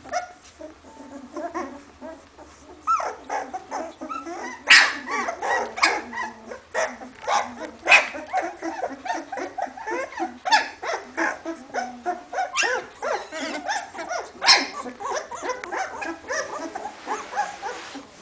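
A litter of two-week-old hovawart puppies whining and squeaking almost without pause, many small voices overlapping, with a few sharper, louder yelps.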